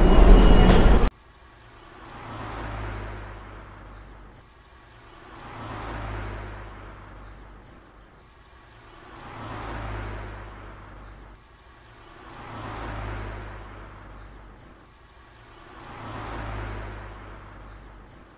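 Road traffic: cars passing one after another, five of them, each swelling up and fading away about every three and a half seconds. A louder, denser sound cuts off abruptly about a second in.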